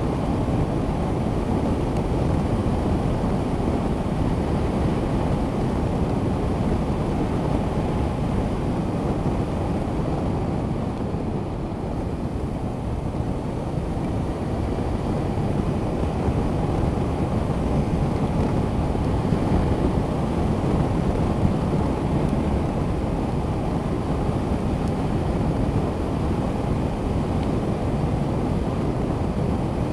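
Honda CB500X motorcycle under way at road speed, its parallel-twin engine running steadily beneath heavy wind rush on the camera microphone. The rush eases slightly about twelve seconds in, then builds again.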